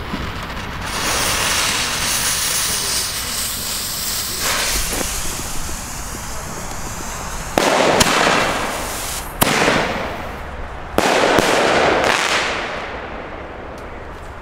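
Weco Fantastic 4 single-shot firework tubes going off: a long fizzing hiss, then about halfway through a sudden loud bang with a hissing crackle after it, and two more sharp bangs about a second and a half apart, each trailed by crackling that fades away near the end.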